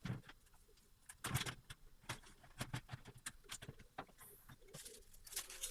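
Scattered light clicks and knocks of a PC power supply being handled and set into a metal computer case, with one louder knock about a second and a half in.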